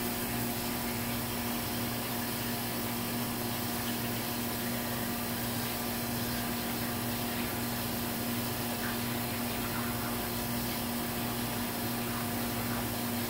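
Parts-washer pump running with a steady hum while its hose sprays solvent with an even hiss, washing out a disassembled transmission valve body.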